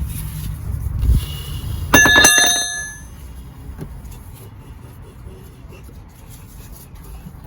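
A single metallic clang about two seconds in, a metal tool striking or dropped on metal, ringing with several clear tones that fade within about a second. Low rumbling handling noise comes before it.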